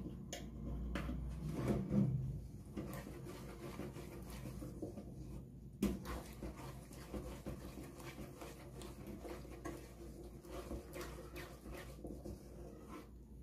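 Wooden spoon stirring thick wheat-flour paste in a pot, with soft scraping and small irregular knocks against the pot; one sharper knock about six seconds in.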